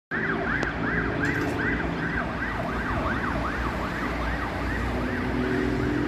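Ambulance siren sounding in a fast rise-and-fall, about three sweeps a second, over a steady traffic rumble. The siren grows a little fainter near the end.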